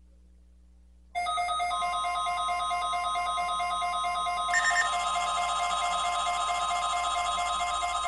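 Weather radio receivers sounding the alert for a NOAA Weather Radio required weekly test. A pulsing electronic alarm starts suddenly about a second in and is soon joined by the long steady warning alarm tone. The beeping grows busier about halfway through and part of it fades near the end.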